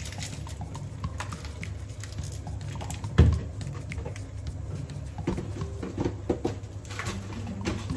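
Kitchen handling noises: scattered light clicks and knocks, with one heavy thump about three seconds in, over a steady low hum.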